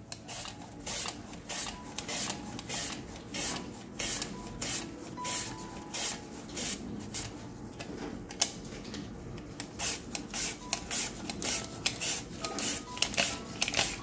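Raw sweet potato being pushed back and forth across a handheld mandoline slicer, a rasping stroke two or three times a second as each thin slice is cut.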